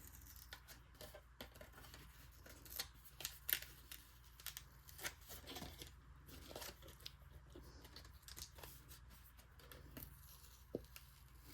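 Faint paper handling: small clicks, light rustling and soft tearing as tape is peeled off a paper card and a cutting die.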